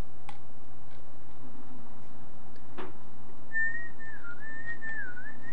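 Computer cooling fan clogged with dust, running with a steady low hum that sounds like machinery, like a lawnmower. Past the middle a thin, whistling whine starts that keeps dipping in pitch and coming back up.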